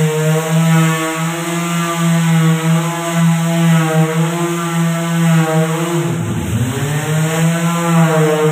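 Corded electric finishing sander running steadily while sanding a wooden door frame, a buzzing motor hum that wavers slightly with the pressure on the pad. About six seconds in, the motor pitch dips sharply and then climbs back up.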